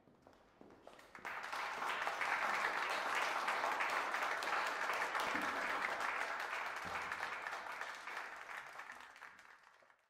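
Audience applauding. The clapping swells about a second in, holds steady, then thins out and fades near the end before cutting off.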